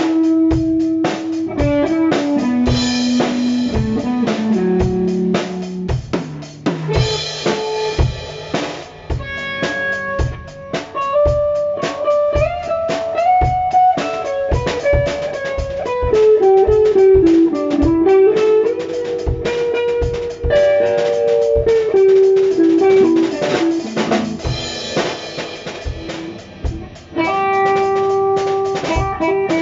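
Instrumental music: an electric guitar playing a melody line that bends and slides between notes, over a steady rock drum beat with kick drum and snare.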